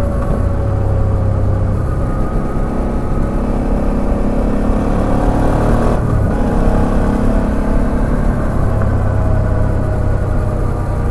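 Suzuki V-Strom 650XT's 645 cc V-twin engine running under way, its note rising slowly, with a short break in the sound and a change of pitch about six seconds in.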